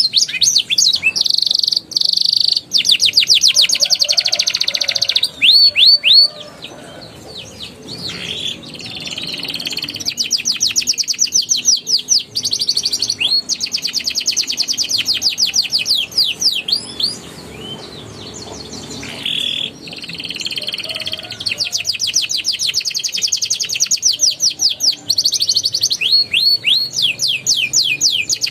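Male domestic canary singing: long runs of rapid trills, fast repeated notes and falling sweeps, broken by brief pauses.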